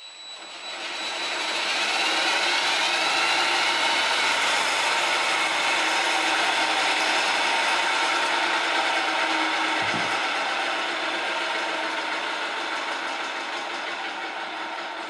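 DeWalt cordless drill spinning a lawnmower blade up to speed on its balancing shaft, its motor whine rising in pitch over the first few seconds. Then a steady whirring and rattling of the spinning blade and shaft bearings, with a soft knock about ten seconds in, slowly getting quieter as the blade coasts down.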